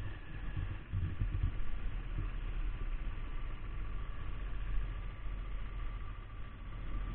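Kawasaki Ninja 250 motorcycle engine running at low revs as the bike rolls slowly away, a steady low rumble with no revving.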